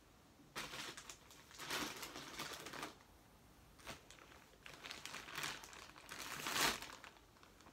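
Plastic shopping bags rustling and crinkling as someone rummages through them by hand, in two bouts of a few seconds each, the loudest crinkle near the end.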